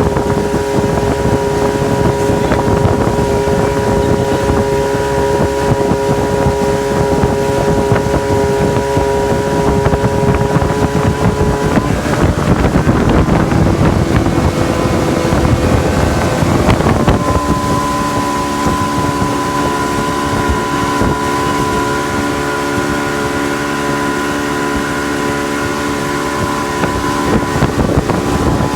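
Mopar engine driving a pontoon boat under way, running steadily. About halfway through its pitch wavers and climbs, then settles into a steady, different pitch.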